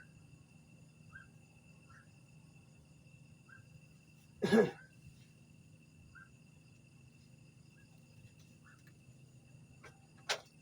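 Night insects droning steadily at a high pitch, with faint short chirps about once a second. About halfway through comes one short, loud voice-like sound, and a sharp click near the end.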